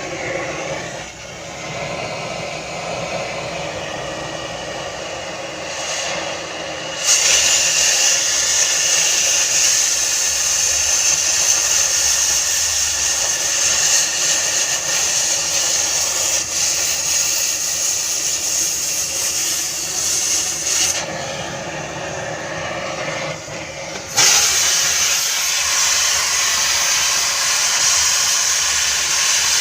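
Gas cutting torch hissing steadily while cutting pipe. The hiss jumps louder and brighter about seven seconds in, falls back around twenty-one seconds, and jumps up again a few seconds later, as the cutting oxygen is turned on and off.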